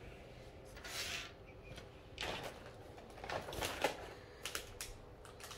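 Rustling and light clicks of small unboxed items and their packaging being handled, in several short bursts.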